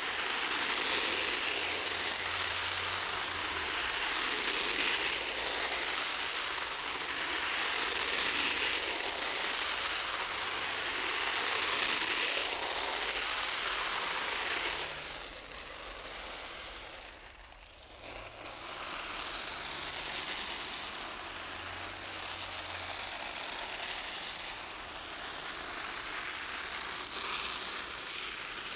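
Rice grains pouring from a swinging pendulum onto a corrugated sheet, a dense rattling patter of grains on the ridges. About halfway through it drops quieter, almost fades for a moment, then goes on more softly.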